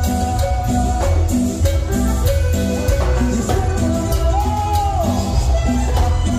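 Live Latin tropical dance band playing over the PA: keyboard melody, electric bass and percussion on a steady beat.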